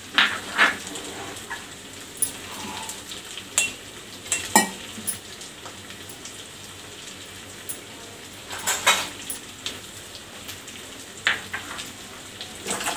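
Chicken curry boiling steadily in a metal pot, with a steel ladle clinking and scraping against the pot a few times as the freshly added millet-flour slurry is stirred in.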